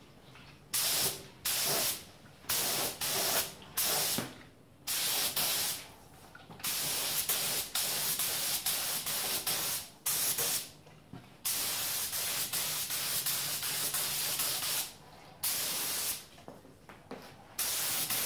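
Compressed-air spray gun hissing as paint is sprayed, in bursts that start and stop sharply as the trigger is pulled and let go: a run of short bursts, then longer passes of several seconds, then short bursts again near the end.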